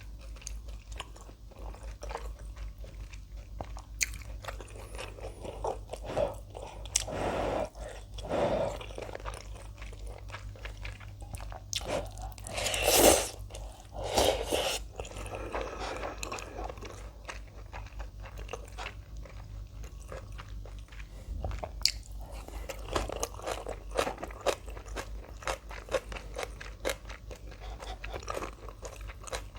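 Close-miked eating: crunchy kimchi and ramen being bitten and chewed with steady crackling crunches. There are a few louder bursts, the loudest about halfway through.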